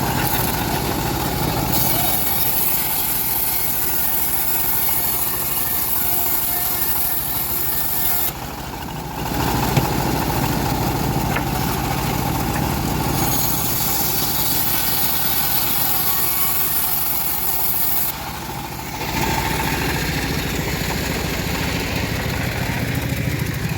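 Homemade engine-driven bandsaw mill running steadily while its blade cuts through a teak log, with a bright hissing sawing sound during two long spells. Twice the sound drops briefly for about a second.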